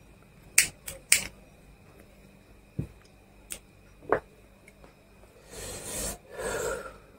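A disposable plastic lighter being struck to light a cigarette: three sharp clicks in quick succession within the first second or so, then a few softer clicks. Near the end come two long, breathy exhalations as cigarette smoke is blown out.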